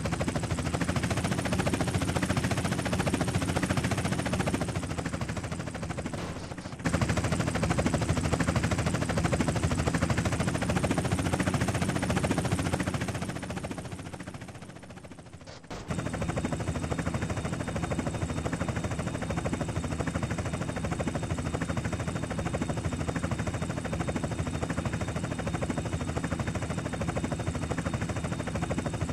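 Helicopter rotor chopping in a fast, steady beat, with the sound of the engine behind it. The sound cuts out for a moment about 7 s in, fades down and then cuts over to a steadier rotor sound with a faint high whine.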